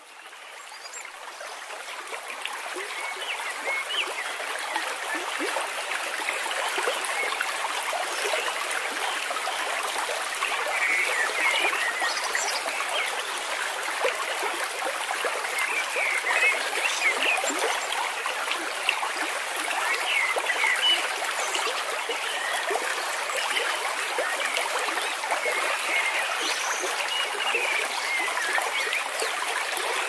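Shallow snowmelt stream trickling and gurgling steadily over grass. It rises in level over the first few seconds, then holds.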